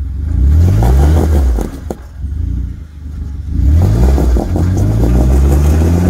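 Jeep Wrangler engine revving under load while rock-crawling: one rise in revs at the start, then a second rise about three and a half seconds in that is held high to the end. A single sharp knock about two seconds in.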